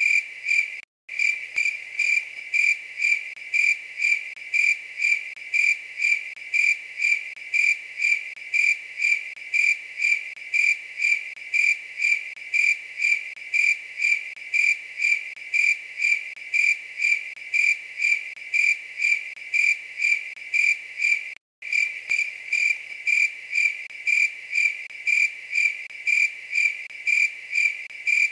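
A cricket chirping steadily: clear, high, evenly spaced chirps at about two a second. The sound cuts out for an instant twice, about a second in and again about three-quarters of the way through.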